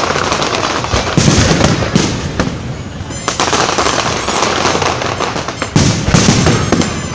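Fireworks going off in a dense, continuous barrage of bangs and crackles, swelling louder about a second in, around three seconds in and again near six seconds.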